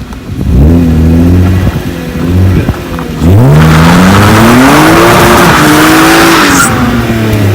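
BMW E36 drift car's engine revving hard under acceleration. There is a short rev and drop about half a second in, then a longer, louder climb from about three seconds in that peaks and falls away near the end. Through the long pull a loud rushing noise runs alongside the engine.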